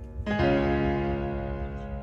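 Background piano music: a new chord is struck about a quarter of a second in and rings on, slowly fading.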